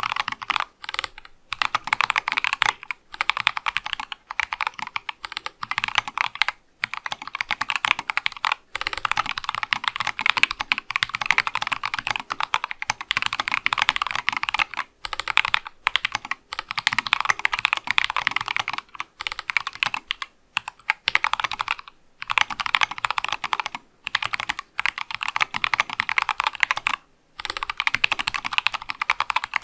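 Fast typing on an Acrylic Sesame mechanical keyboard fitted with C3 Kiwi tactile switches, a dense run of keystroke clicks broken by short pauses every few seconds.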